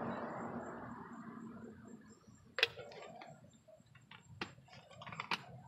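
A cloth rubbing over a leather car seat, fading out over the first couple of seconds. Then a few scattered sharp clicks and taps from hands handling the bottle and towel.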